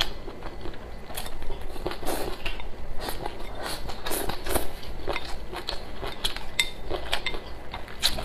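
Wooden chopsticks clicking and scraping against a ceramic rice bowl as rice is shovelled into the mouth, a quick run of small clinks and scrapes.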